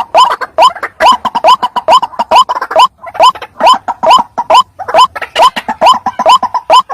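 White-breasted waterhen calling: a steady series of short notes, each rising slightly in pitch, about three a second.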